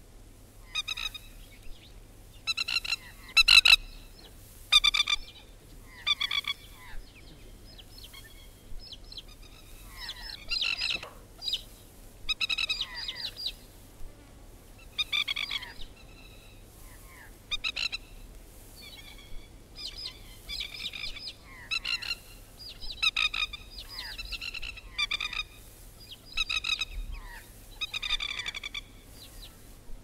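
Spur-winged plover calling over and over: short runs of quick repeated notes every second or two. The recording is a field recording played from a vinyl LP, with a low hum beneath.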